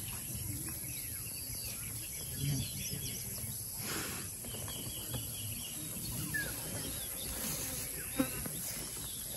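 Faint outdoor ambience: a steady low background hiss with a few faint bird chirps, and a brief soft brush of noise about four seconds in.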